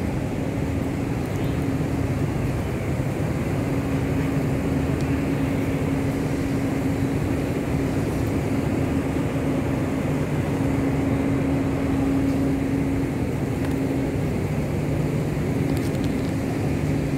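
Steady drone of machinery with a constant low hum that holds its pitch throughout.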